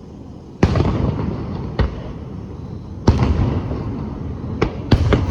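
Aerial firework shells bursting at a fireworks display: about six sharp bangs, the two loudest about half a second in and about three seconds in. Each bang is followed by a long, lingering echo.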